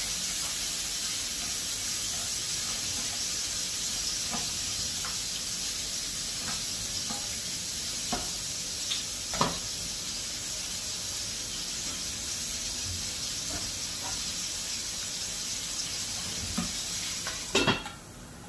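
Sliced onions and vegetables sizzling steadily in a frying pan over a gas flame, with a few light clicks of a utensil against the pan. Near the end a glass lid clatters onto the pan and the sizzle drops to a muffled hiss.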